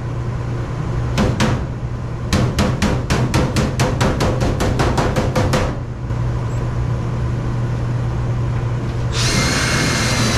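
Hammer tapping on sheet-metal furnace ductwork: a couple of strikes, then a fast run of taps at about five a second, over a steady low hum. Near the end a cordless drill runs for about two seconds.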